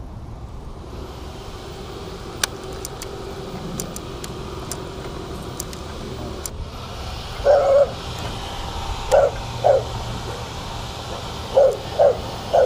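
A dog barking about five times, the later barks coming in pairs, over a steady low rumble of traffic.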